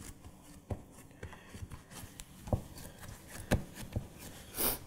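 A few soft, scattered thumps and knocks as hands press bread dough down into a metal loaf pan, with a brief rushing noise near the end.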